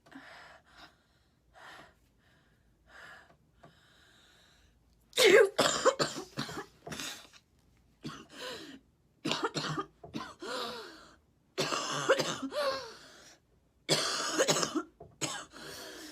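A woman's coughing fit while sick with a congested chest and nose: a few short, faint breaths at first, then from about five seconds in a long run of loud coughs in quick bursts, one after another.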